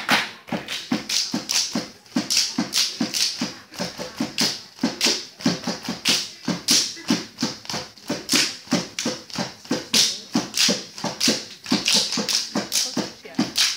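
Saman dance: a row of kneeling dancers clapping their hands and slapping their bodies in unison, a fast, steady rhythm of sharp claps about three a second with duller thuds among them.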